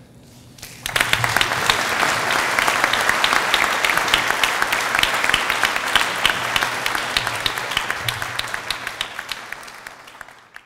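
Large audience applauding: dense clapping that starts about a second in and fades away near the end.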